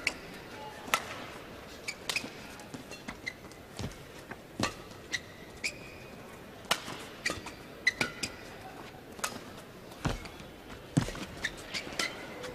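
Badminton rally: sharp cracks of rackets striking the shuttlecock at irregular intervals, mixed with short high squeaks of players' shoes on the court.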